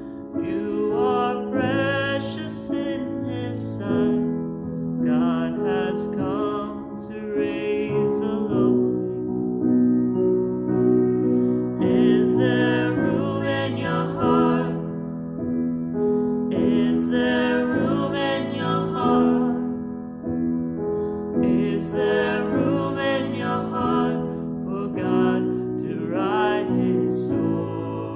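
A man and a woman singing a song together as a duet, accompanied by a grand piano. The voices sing in phrases with short breaths between them while the piano carries on underneath.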